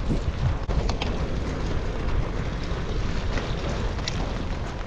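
Wind rumbling steadily on the camera microphone while a Brompton folding bike is ridden along a wet towpath, with a few light ticks scattered through it.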